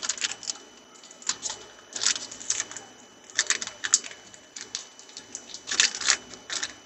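A foil trading-card pack wrapper crinkling as cards are handled, heard as irregular short crackly rustles about once a second.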